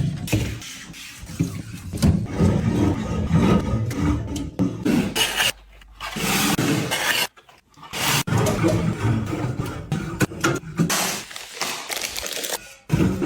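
Groceries being handled and put into a fridge: packaging rubbing and scraping, with many short knocks and clicks as items are set down. The sound breaks off briefly twice in the middle.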